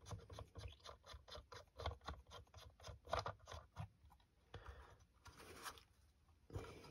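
Faint, quick scratching and clicking of a Badger Ordnance Catseye filter being threaded on by hand, about four small clicks a second for the first few seconds, then a few fainter ticks.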